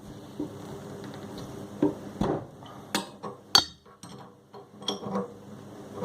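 A 17mm spanner clinking and knocking against the metal valve body of a mixer tap while the ceramic disc valve is unscrewed: several separate sharp metallic clinks.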